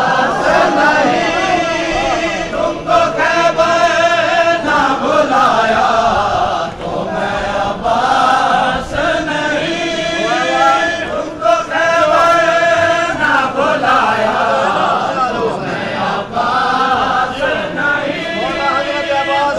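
A crowd of men's voices chanting a Shia Muharram lament (nauha) together in unison, in continuous sung phrases with short breaks between them.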